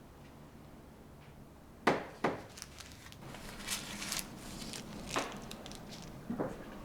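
Two sharp knocks about two seconds in, followed by a run of clicks and light rattling, and another knock near the end: objects being handled and set down.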